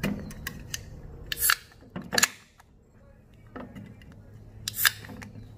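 Aluminium beer can being handled and its pull tab worked with the fingers: several short, sharp metallic clicks, the tab not yet giving way.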